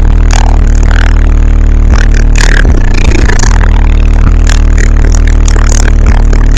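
Rap song played very loud through a car audio system's subwoofers, the deep bass overloading the microphone.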